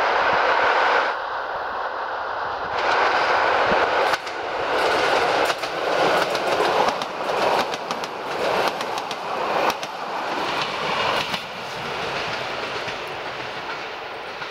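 EN57 electric multiple unit passing close by, its wheels clacking rhythmically over rail joints as the carriages go past; the running noise dies away over the last few seconds as the train moves off.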